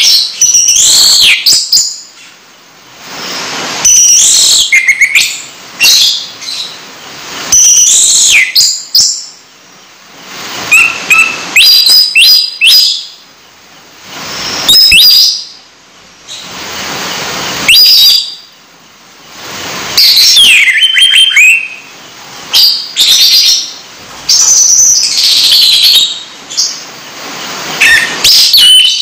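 Caged songbird singing loud bouts of sharp chirps and rising and falling whistled phrases, one bout every second or two.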